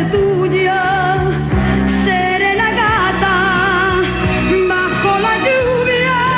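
Live ballad performance: a female singer with orchestral backing including strings, singing a Spanish-language ballad in long held notes with vibrato.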